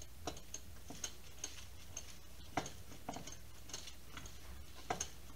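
Vegetable pieces, mostly butternut squash slices, being set by hand into a glass baking dish: irregular light clicks and taps on the glass, with a steady low hum underneath.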